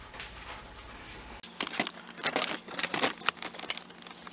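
A quick run of clicks and rattles from a metal wiring-harness bracket and its connectors being handled, starting about a second and a half in and stopping shortly before the end.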